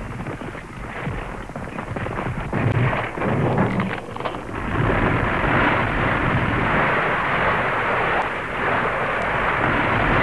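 Rumble and crackle of a multi-storey building collapsing, a dense continuous noise that grows louder over the first five seconds or so and then holds steady.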